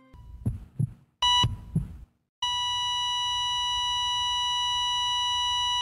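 Hospital heart-monitor sound effect: low double thumps like a heartbeat, one short beep about a second in, then a continuous flatline tone from about two and a half seconds in, the sign of the heart stopping.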